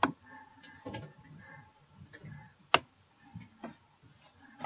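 A few sharp clicks: a loud one right at the start, another near the middle, and fainter ones between, over faint room sound.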